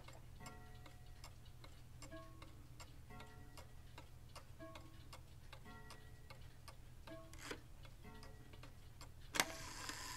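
Antique Black Forest cuckoo clock calling: a two-note cuckoo, a higher note then a lower one, repeated about every second and a half, faint over the steady ticking of the movement. A sharp click comes near the end.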